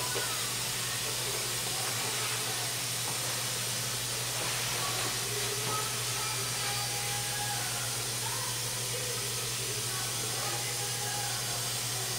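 Steady hiss with a constant low hum underneath, unchanging throughout.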